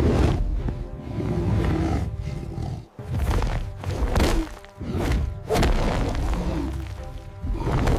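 Dramatic background music with about five heavy booming hits spread through it, near the start, in the middle and near the end.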